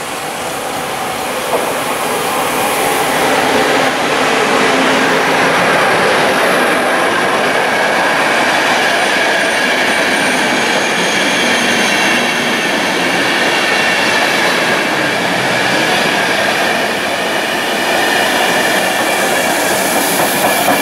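Passenger train of coaches passing at speed close by: a steady rolling noise of wheels on rail that grows louder over the first few seconds as the train arrives, with faint high ringing tones running through it later on.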